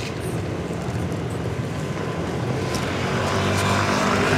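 A vehicle engine's steady low drone over outdoor urban background noise, growing gradually louder.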